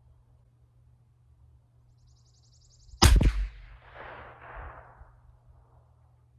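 A single shot from a CZ 457 LRP .22 LR bolt-action rifle firing Eley Tenex Pistol ammunition, about three seconds in: one sharp crack followed by an echo rolling away for about two seconds. It is the cold-bore first shot of the string.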